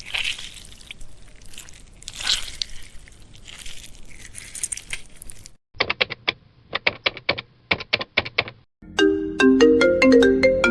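Three sound effects one after another. First a wet, crackling blood-splatter effect for about five and a half seconds, then about three seconds of quick telephone-button clicks. About nine seconds in, an iPhone 8 ringtone melody starts, played on a marimba-like tone.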